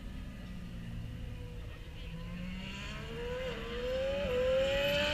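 A racing vehicle's engine accelerates along the circuit. The note rises in pitch, drops back sharply twice as it shifts up a gear and climbs again, growing louder near the end as it approaches.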